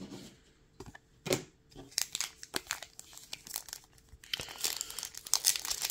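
Foil booster-pack wrapper of a Lorcana trading card game being crinkled and torn open by hand, with dense crinkling from about four seconds in. Before that, a few soft clicks and rustles of cards being handled.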